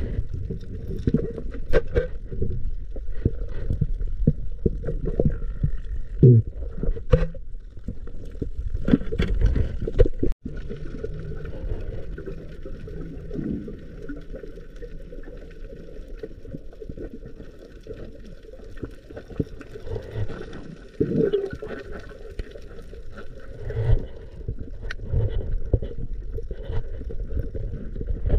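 Muffled underwater noise through a camera in a waterproof housing: a low rush and gurgle of moving water and bubbles, with scattered knocks and thumps. There is a brief dropout about ten seconds in.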